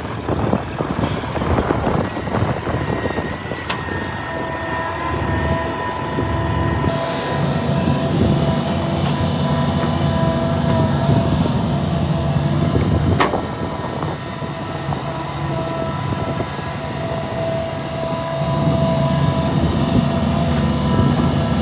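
Heavy diesel earthmoving machinery, a hydraulic excavator with dump trucks, running steadily with a steady high whine over the engine. The engine pulls harder twice, in the middle and near the end, and a few sharp metallic clanks come through.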